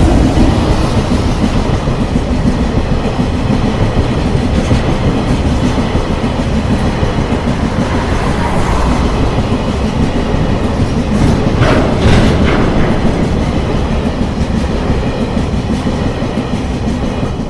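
Long freight train passing a level crossing at close range, a steady heavy rumble with wheels clattering over the rail joints and a few sharper clanks about twelve seconds in.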